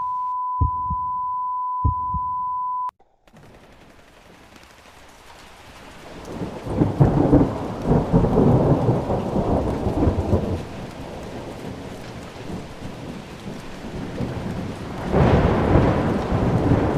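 A steady high beep with a few dull thumps under it, cut off sharply about three seconds in; then a rumbling, gusty noise like wind buffeting the microphone swells up, strongest in the middle and again near the end.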